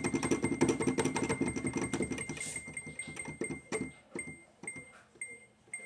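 Electronic sound effect: a rapid run of keyboard-like notes and clicks, dense at first, then thinning out and fading away over the last few seconds, with a short high beep repeating through it.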